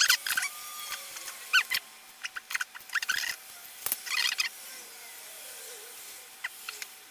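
Handling noises from a plastic model kit: scattered clicks, taps and short crinkly rustles as small plastic parts are picked over by hand, with a few brief squeaks.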